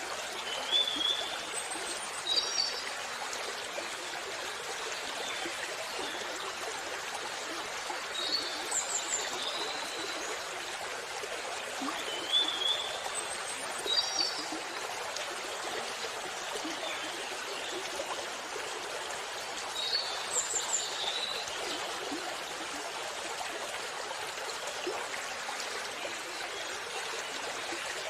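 Steady rush of falling water from a waterfall, with short high bird chirps breaking in every few seconds.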